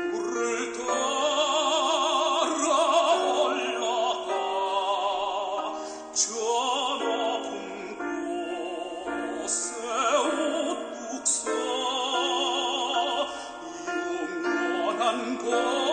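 Classical, operatic-style singing with wide vibrato over steady instrumental accompaniment.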